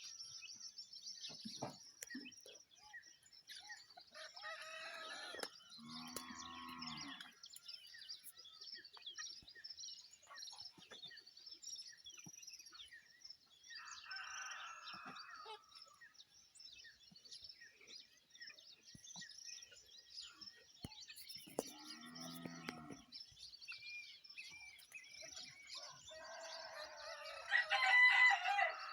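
Dawn chorus of small birds chirping steadily, with a rooster crowing several times over it; the loudest crow comes near the end.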